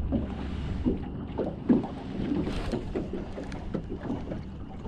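Outboard motor running as a small open boat travels over choppy water, with water knocking against the hull at irregular moments and wind on the microphone.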